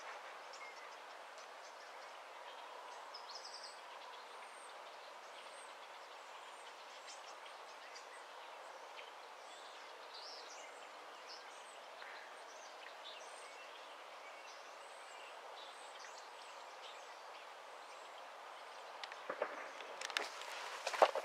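Marsh-side outdoor ambience: a steady background hiss with scattered short, high bird chirps. From about 19 s in, rustling and sharp knocks from the camera being handled and moved, the loudest knock near the end.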